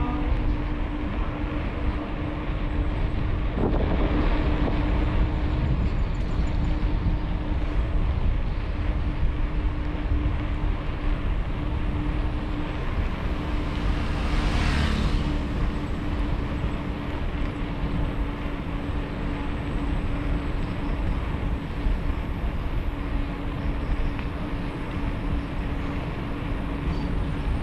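Steady riding noise from a moving bike: low road and wind rumble under a constant hum. A brief hissing swell rises and fades about fifteen seconds in.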